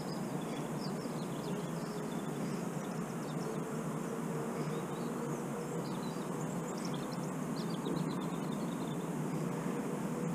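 Steady rushing of a river current, with faint high bird chirps scattered through and a faint hum that comes and goes.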